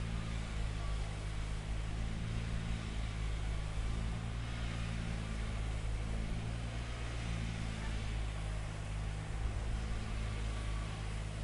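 Heavy diesel machinery engine running steadily, a low constant hum.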